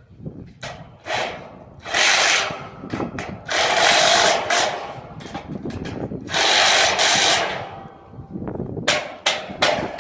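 A power tool running in short bursts of about a second each, with scattered sharp clanks in between.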